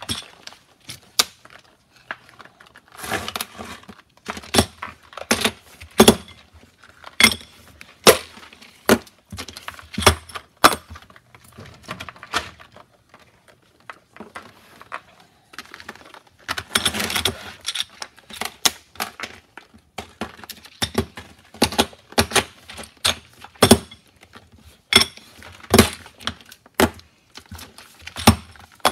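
Loaded brass cartridges and plastic cartridge trays clinking and clattering as they are handled, with many sharp clicks and knocks throughout. Two longer rattles come about three seconds in and again around seventeen seconds in.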